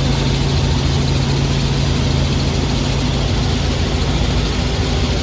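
Helicopter in flight, heard from inside the cabin: a loud, steady drone of engine and rotor with a strong low hum.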